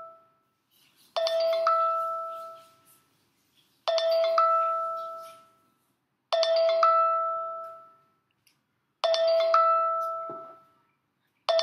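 A two-note chime, a lower note then a higher one about half a second later, ringing out and repeating about every two and a half seconds, four times and starting a fifth at the very end.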